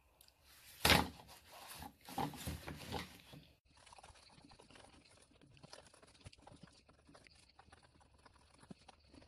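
A thump about a second in and a few seconds of rustling and scraping, then, after an abrupt change, the faint irregular scratching and ticking of a pencil on lined notebook paper as a drawing is sketched.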